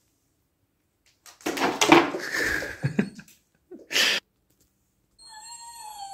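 Keys and door handling clatter and rustle for a couple of seconds, with a sharp clatter about four seconds in. Near the end a young whippet puppy gives a thin, high whine that slides down in pitch.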